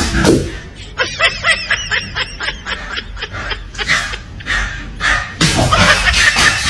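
A quick run of high-pitched laughter, about a dozen short even 'hee' notes over two seconds, starting about a second in. Background music comes back near the end.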